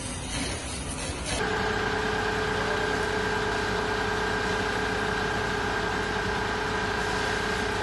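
Fire engine running steadily, with a steady whine over the hiss of a hose spraying water. The engine sound comes in abruptly about a second and a half in.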